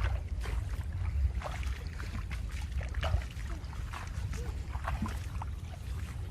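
Water sloshing and splashing in short irregular bursts over a low steady rumble.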